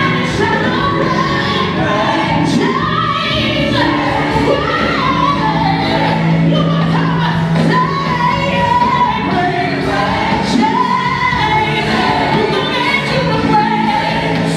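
Gospel music with a choir singing over a steady instrumental backing.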